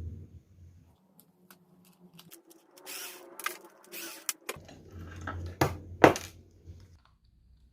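Handling noises from parts and tools being worked: rustling and a series of small clicks and knocks, the loudest a sharp knock about six seconds in.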